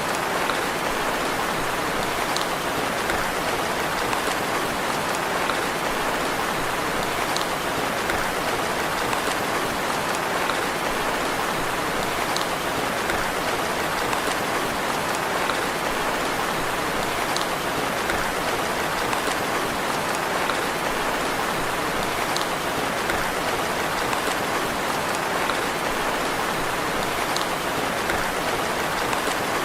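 Steady rain falling, a dense even hiss that never lets up, with faint drop-like ticks every few seconds.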